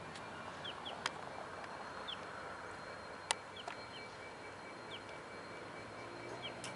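Quiet outdoor ambience with short, high bird chirps repeating every second or so and a few sharp clicks. A diesel locomotive's engine hum comes in faintly near the end.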